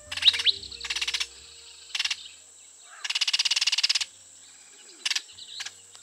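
Hooded oriole calling: a series of harsh, rapid chatters, mostly short, with one lasting about a second midway. A couple of quick rising whistles come right at the start.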